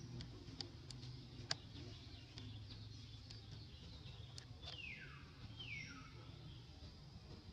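Faint outdoor ambience with scattered soft clicks and two high animal calls, each sliding down in pitch, about a second apart a little past the middle.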